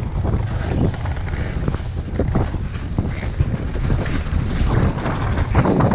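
Yamaha VK540 snowmobile's two-stroke twin engine running steadily, with wind buffeting the microphone.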